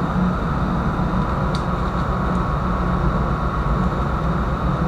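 Steady low drone of a ship's machinery heard on the open deck, with a faint click about one and a half seconds in.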